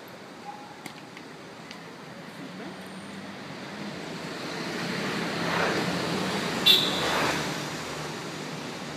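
Street traffic: a passing vehicle swells up and fades away over a few seconds, with a brief sharp high-pitched sound at its loudest, near the middle.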